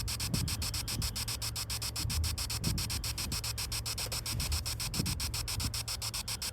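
Spirit-box sweep from the GhostTube ghost-hunting app playing through a phone's speaker: hiss chopped into rapid, even pulses, about eight a second. Under it runs a steady low rumble, with a few faint blips of sound fragments.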